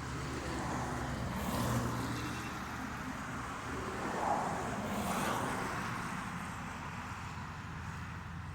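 Road traffic: two vehicles pass by, one about two seconds in and one about five seconds in, over a steady low engine hum.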